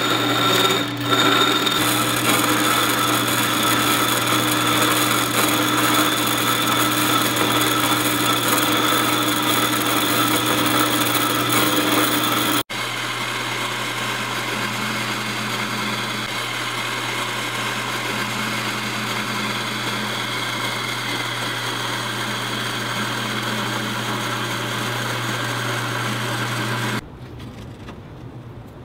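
Metal-cutting bandsaw running with a steady hum while its blade slowly cuts through a thin-wall steel tube clamped in an angled fixture. The sound breaks off for an instant about halfway and resumes a little quieter, and the saw stops about two seconds before the end.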